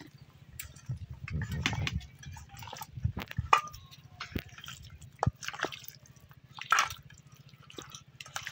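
Hands kneading raw chicken pieces in a wet yogurt, oil and spice-paste marinade: irregular squelches, slaps and sticky wet clicks, over a faint steady low hum.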